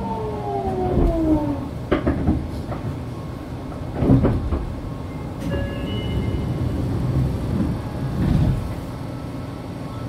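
Fukuoka City Subway 2000-series train braking into a station, heard from inside the car: the motor whine falls in pitch over the first couple of seconds. The car then rolls slowly with several thumps, the loudest about four seconds in, as it comes to a stop.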